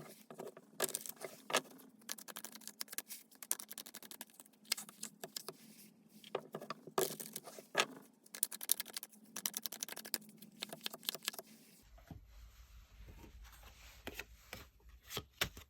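Tarot cards being shuffled and handled: rapid runs of crisp clicks, slaps and patter. About twelve seconds in it gives way to a few scattered taps over a low hum.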